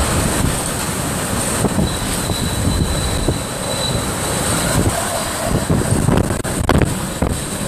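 Hurricane eyewall winds buffeting a car, heard from inside the cabin as a loud, dense rushing that rises and falls in gusts. A few sharp ticks strike about six to seven seconds in.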